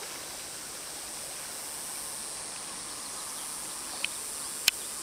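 Shallow river water flowing steadily over stones, with two short sharp clicks about four seconds in, the second louder.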